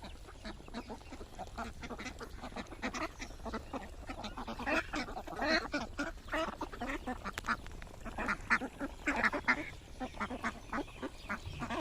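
A flock of domestic ducks quacking over and over as they crowd in to feed, many short calls overlapping. The calls grow busier and louder from about halfway through.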